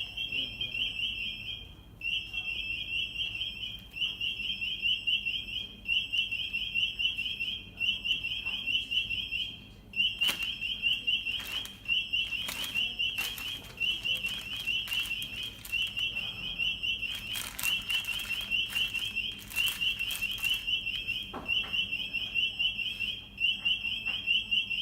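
Anti-theft (EAS) security gate alarm sounding: a high, warbling beep repeating in bursts about every one and a half seconds, the signal that a security tag is being detected.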